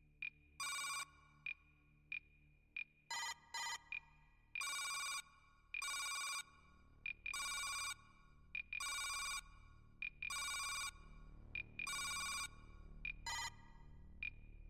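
Computer-terminal readout sound effects: short, high electronic beeps at a steady pace, broken about every one and a half seconds by a longer buzzing electronic chirp, over a faint low hum.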